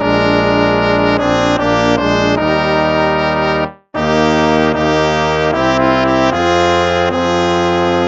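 Instrumental hymn music played in slow, held brass chords. One phrase ends with a short silence about halfway through, and the next phrase begins.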